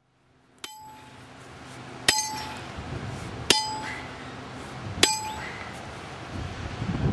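Hammer striking a metal stake driven into the ground: four ringing metal-on-metal clangs about a second and a half apart, the first one light.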